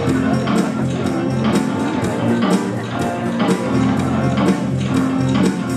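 Music with a steady beat, about two beats a second, over a repeating bass line: the accompaniment to a dressage freestyle.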